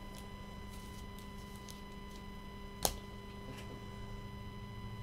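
Steady electrical hum with a faint whine, with a few soft ticks and one sharp click nearly three seconds in.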